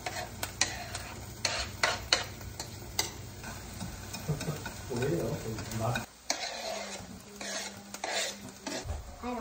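Chopped green onion sizzling in oil in a frying pan while being stirred, with sharp taps and clicks of cooking chopsticks and a knife against the pan and cutting board. Near the end, a knife scrapes chopped onion off the cutting board into the pan.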